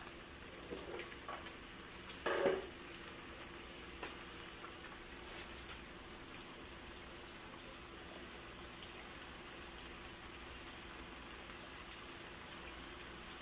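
Steady sizzle of kimchi, onion, garlic and bell pepper frying in oil in a pan. About two seconds in there is a short scrape or knock of utensils.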